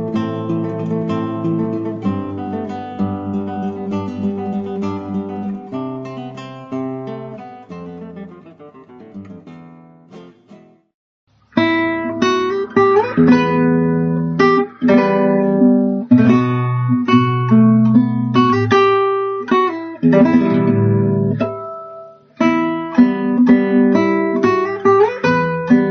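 Acoustic guitar music, plucked and strummed; it fades out about ten seconds in, stops briefly, then starts again.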